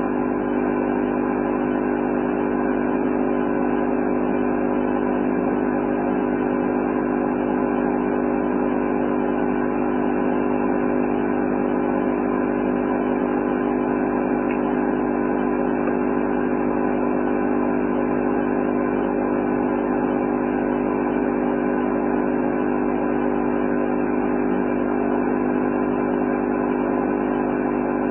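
A steady, unchanging drone of several held pitches with a noisy hiss over it, keeping the same pitch and level throughout.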